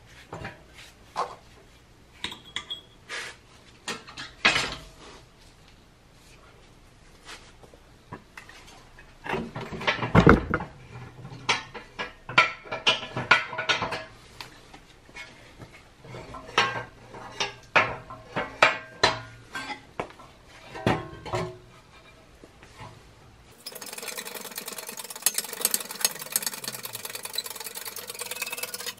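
Metal clinks and clanks from a hand-pumped 10-ton hydraulic shop press as a new wheel hub bearing is pressed into the steering knuckle, in runs of strokes about two a second. About five seconds before the end, a steady dense clatter starts abruptly.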